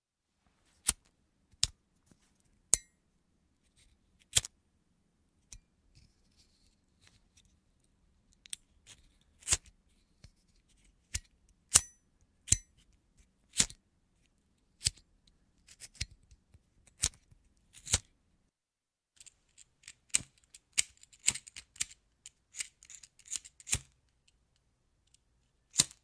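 BIC disposable lighter being flicked over and over: sharp clicks of the thumb wheel striking the flint, about one a second, then quicker, closer-spaced flicks near the end.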